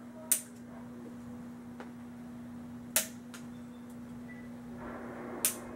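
Three sharp snaps, roughly two and a half seconds apart, with a few fainter ticks between them: small nipper-style wire cutters snipping through nylon zip ties.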